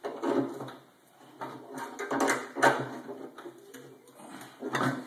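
Irregular clunks and scraping of hand tools and metal parts as an engine is worked apart, in several uneven bursts.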